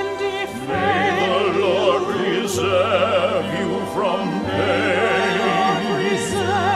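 Background music in an operatic style: a singing voice with strong vibrato over held low notes.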